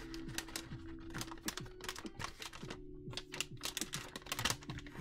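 Paper pieces rustling and shuffling as they are pulled out of a clear plastic zip bag, with the plastic crinkling in a quick run of small clicks. Soft background music with steady held tones plays underneath.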